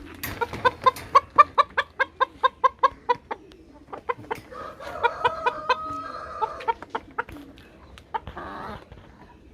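Chickens clucking: a fast run of short calls, about four a second, followed by a longer drawn-out call with more clucks over it, and a brief raspy burst near the end.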